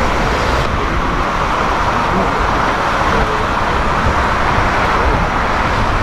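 Boeing 747-400 freighter jet engines running on the ground, a loud, steady, even rush of noise.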